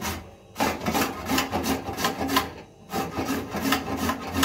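Carrots being grated by hand on a metal grater: quick, repeated rasping strokes, with brief pauses between runs.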